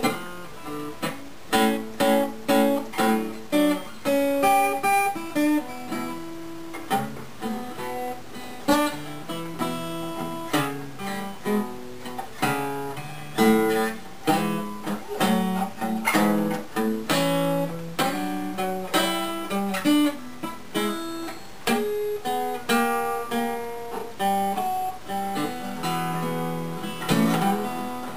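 Gibson L-48 archtop acoustic guitar played freely after a completed repair, a mix of strummed chords and picked notes left to ring.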